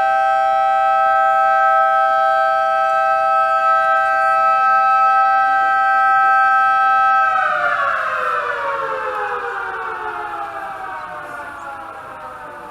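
Demolition warning siren sounding a steady, loud chord of two close tones for about seven seconds, then winding down: the pitch falls steadily and the sound fades. This is the first alarm before the blast.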